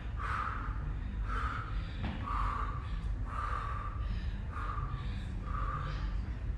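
A woman breathing hard from exertion during a dumbbell workout, a short forceful exhale about once a second, over a steady low hum.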